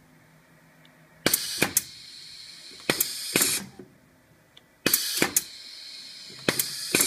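Pneumatic cylinders on a Rexroth training board cycling: each stroke is a sharp clack with a short hiss of exhausting compressed air. There are four such bursts, in two matching pairs about three and a half seconds apart.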